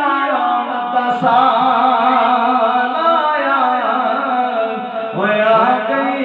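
A man singing a Punjabi naat into a microphone, drawing out long sliding, wavering notes without clear words. He breaks off briefly about five seconds in, then starts a new phrase.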